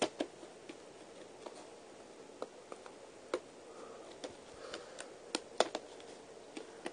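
Scattered soft clicks and taps of hands handling a factory-sealed, shrink-wrapped VHS tape, fingers picking at the plastic wrap to open it.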